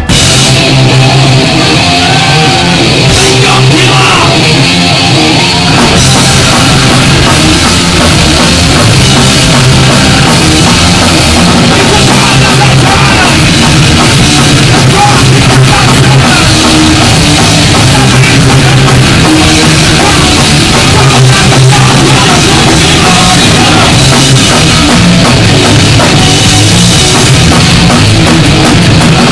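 Punk band playing live at full volume: electric guitar, bass guitar and drum kit, kicking in suddenly at the start.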